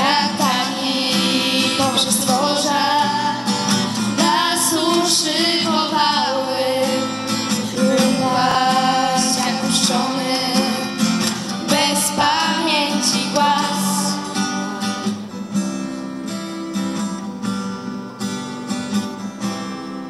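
Acoustic guitar strumming chords under a group of girls singing together. About fourteen seconds in the voices drop away and the guitar strums on alone.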